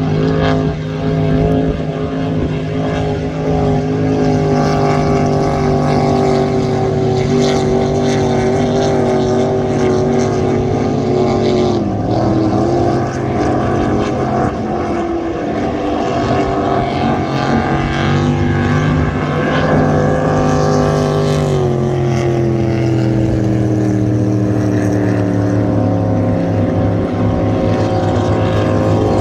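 Race boats' engines running hard on a racing pass, a loud steady drone whose pitch drops about 12 s in and again about 22 s in as boats go by.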